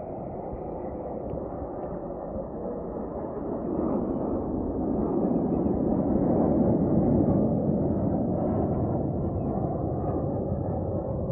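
Jet noise from the turbofan engines of Alpha Jet trainers flying past. It grows louder from about four seconds in, peaks near seven seconds, then slowly eases off.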